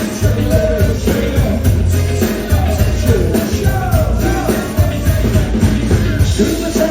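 Live band playing an upbeat pop-rock song at full volume, with a steady drum beat and singing over it.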